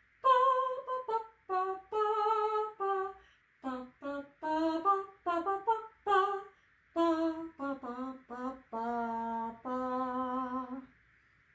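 A woman singing a wordless tune unaccompanied on neutral syllables ("bum, ba, ba"), a song in duple meter made of short detached notes. Near the end she holds a few longer low notes, then stops.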